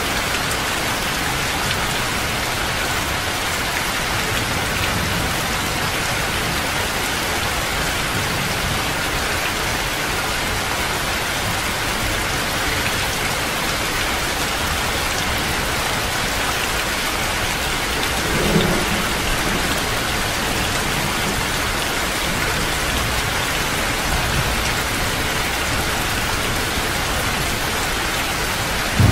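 Heavy rain falling steadily, with low rumbles of thunder and a brief low bump about two-thirds of the way through.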